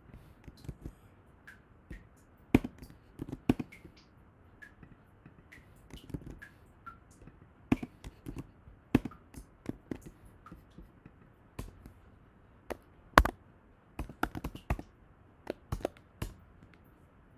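Computer keyboard keystrokes and mouse clicks, irregular and scattered, with a couple of much louder taps.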